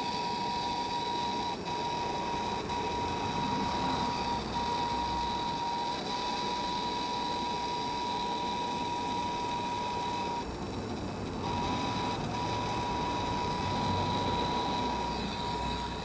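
Handheld propane torch burning with a steady rushing hiss and a thin high whistle in it, heating a copper cable lug until the solder flows.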